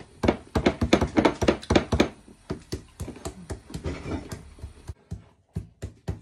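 An egg knocked again and again against the rim of a bowl to crack it: a quick run of light knocks, which come further apart after about two seconds.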